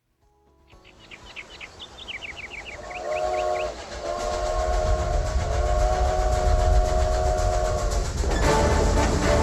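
Train sound effect: a rumbling train approaches and grows louder, and its chord whistle sounds once briefly and then in one long blast. Short high chirps come early on, and the rumble builds throughout.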